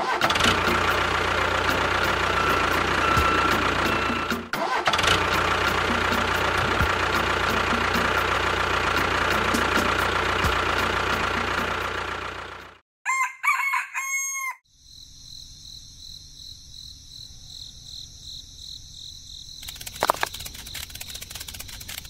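A tractor engine running steadily, cutting off suddenly about thirteen seconds in; a rooster then crows. Faint steady high tones follow, with a few clicks near the end.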